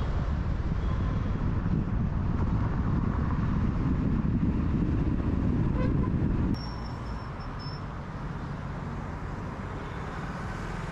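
A car driving on a city road: a steady rumble of engine and tyre noise that drops to a lower level about six and a half seconds in.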